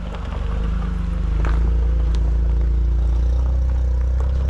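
Car engine pulling at low speed over a rough, rocky dirt track, with a few stones clicking and clattering under the tyres. The engine gets louder and rises slightly in pitch about a second in, then holds steady.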